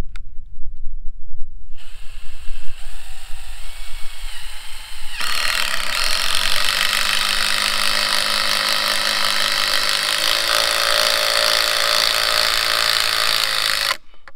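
RYOBI One+ 18V cordless drill driving a screw into a pine trellis post. It starts softly with a whine that rises and falls as the trigger is eased, then runs steadily under load for about nine seconds and stops suddenly near the end.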